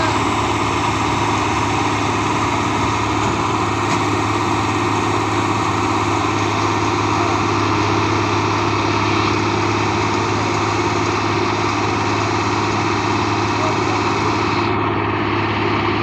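New Holland combine harvester running steadily: a constant, loud mechanical drone with a strong low hum from its engine and machinery.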